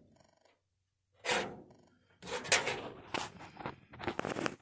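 A short sound about a second in, then a string of sharp knocks and scrapes from metal parts being handled and pushed into place as a brake booster and its bracket are worked onto the firewall studs.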